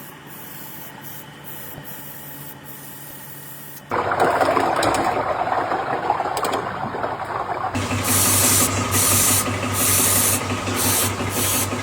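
Workshop machinery: a low steady hum, then about four seconds in a loud rasping, rubbing noise like sanding or filing. From about eight seconds a machine hum with rhythmic hissing bursts joins it.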